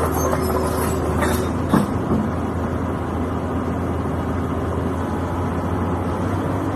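Caterpillar 320 excavator's diesel engine running steadily with a low hum, plus a short metallic click about two seconds in.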